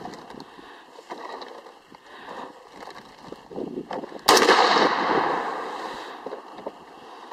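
A single shot from an AR-15-style rifle about four seconds in, trailing off in an echo over about a second and a half; fainter pops and clicks come before it.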